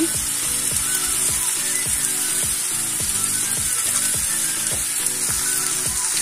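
Chopped vegetables and spice powders sizzling steadily in hot oil in a kadai. Background music with a steady beat runs underneath.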